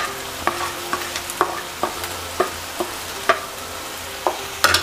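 Spatula scraping and knocking against a kadhai about twice a second, stirring the onion-tomato masala as it sizzles in oil, with a quick cluster of louder scrapes near the end: the ground spices being roasted into the masala.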